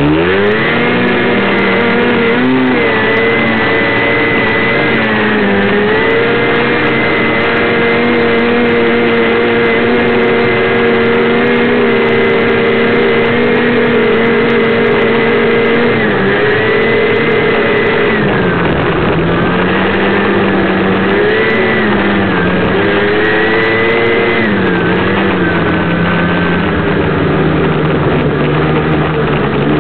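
Snowmobile engine running loudly at speed, its pitch rising quickly at the start and holding steady for a long stretch, then dropping and wavering in the last third as the throttle changes.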